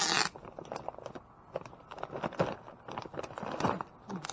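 Plastic sacks and paper dog-food bags rustling and crinkling as hands rummage through them. A loud rustle comes right at the start, followed by irregular crackles and soft knocks.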